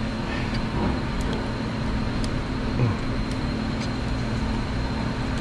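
Steady machine drone with a low hum: the background noise of an auto repair shop. A few faint light clicks over it.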